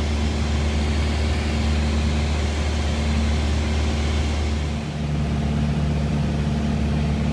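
Small airplane's engine and propeller droning steadily in the cabin. About five seconds in the note dips briefly and settles into a slightly different steady tone.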